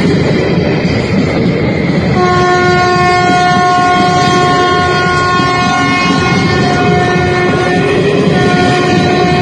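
WAP-4 electric locomotive's horn sounding one long, steady blast from about two seconds in, over the rumble and clatter of a train running at speed on the rails. The blast breaks off briefly near the end and sounds again.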